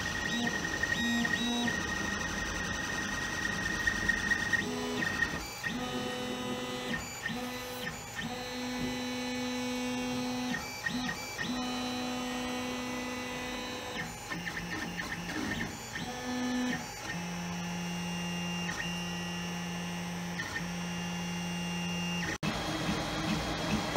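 Creality FDM 3D printer printing: its stepper motors whine in steady tones that jump to a new pitch every second or so as the print head changes direction and speed, over a constant background hum.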